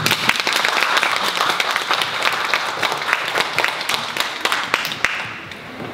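Audience applauding, a dense patter of many hands clapping that thins out and fades about five seconds in.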